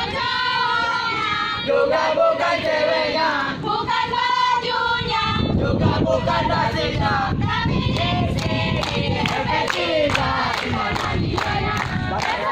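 A mixed group of young men's and women's voices singing a cheer song together in unison. Rhythmic hand claps join in about halfway through.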